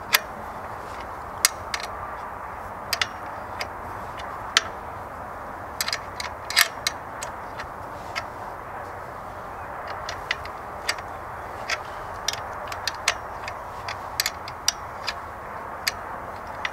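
Irregular sharp clicks and taps of a hand tool and metal parts on a new WEN inverter generator's frame as its red shipping brackets are taken off, over a steady background hiss.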